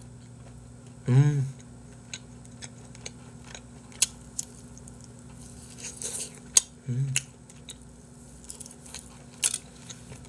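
Close-miked chewing of grilled chicken heart skewers: wet mouth clicks and smacks scattered throughout, with two brief voiced murmurs, one about a second in and one about seven seconds in, over a steady low electrical hum.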